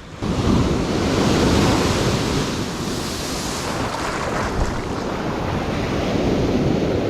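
Ocean surf washing in steadily against the shore, with wind rumbling on the microphone.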